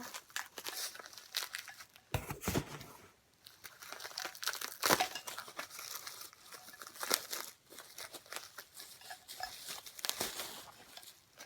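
Packaging crinkling and rustling with some tearing as merchandise is unwrapped by hand, in a run of irregular sharp crackles.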